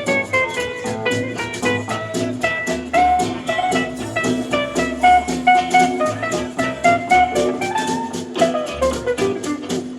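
Live band playing an instrumental: lead guitar carrying the melody over bass and drum kit, with a steady drum beat.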